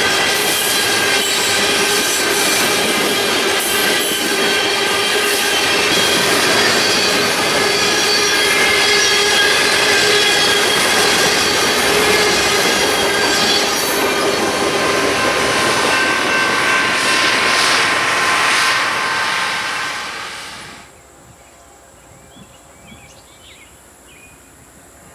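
A freight train of Herzog open hopper cars rolling past close by, its steel wheels rumbling and clattering on the rails with several steady squealing tones. About twenty seconds in, the sound cuts off abruptly to a much quieter faint background.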